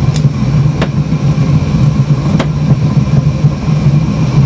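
A steady low drone from a running machine, like an idling motor, with two sharp metallic clicks, about a second in and just past halfway, as tongs knock against the freshly cast bronze pieces in the sand mould.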